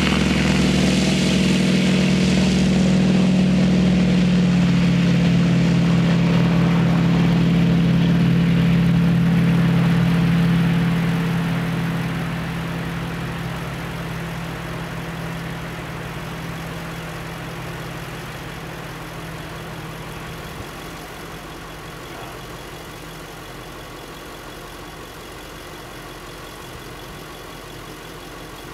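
Douglas Super DC-3's engines and propellers running steadily at high power, then fading away steadily from about a third of the way in to a much quieter drone.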